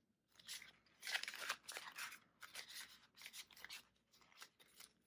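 Faint, irregular crisp rustling of paper banknotes being handled and counted, with the crinkle of a clear plastic binder pouch as bills go into it.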